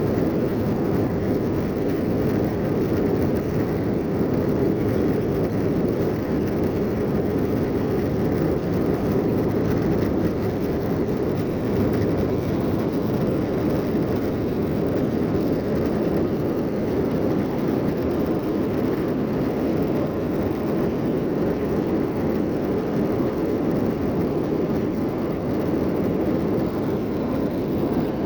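Airbus A321-231 airliner heard from inside the passenger cabin: a steady, even noise of its IAE V2500 turbofan engines and the airflow, low and constant, with no change in pitch or level.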